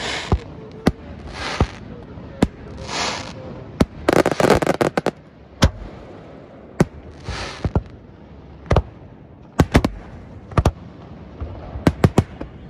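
Aerial fireworks display: irregular sharp bangs of shells launching and bursting, with several short hissing rushes between them and a dense stretch of crackling about four seconds in.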